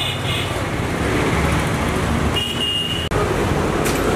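Roadside traffic noise, a steady low rumble of passing vehicles, with a short high horn toot about two and a half seconds in.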